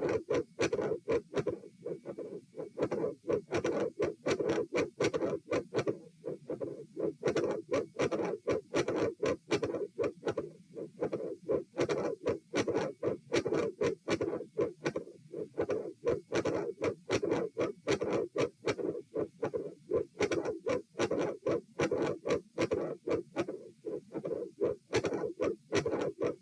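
Heart sounds at the aortic area: regular repeating beats, with a short mid-systolic sound and a murmur at the second heart sound, which the recorder queries as possible coarctation of the aorta.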